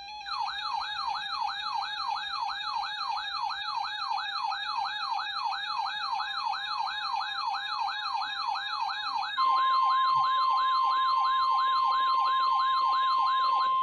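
An electronic yelp siren sweeping rapidly up and down, about three times a second. About nine seconds in, a steady single tone near 1 kHz joins it: the 1050 Hz NOAA Weather Radio warning alarm tone that comes before a broadcast warning.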